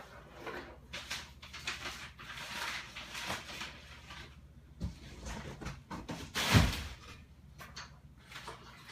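Someone rummaging in a room: things being handled and shifted with irregular rustling and clattering, and one loud thump about two-thirds of the way through.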